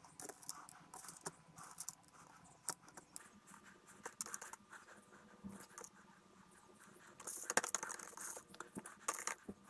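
Loose steel ball bearings from a bicycle freewheel clicking and rattling as they are tipped and picked out of a clear plastic tray onto kitchen paper, with light scraping of the plastic tray. The clicking is faint at first and gets busier toward the end.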